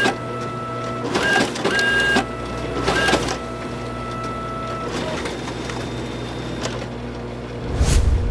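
Typewriter mechanism whirring with a steady mechanical whine, surging louder about a second in and again about three seconds in, then settling to a quieter steady hum. Near the end a deep low boom swells up.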